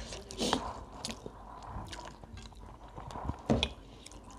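People eating by hand: chewing and mouth smacks with scattered small clicks, a few louder smacks among them, and fingers squishing food on plates.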